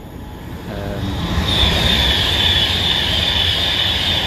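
A Pendolino high-speed electric train passing close by. Its rushing noise swells over the first second and a half, then holds, with a steady high whine over a low rumble.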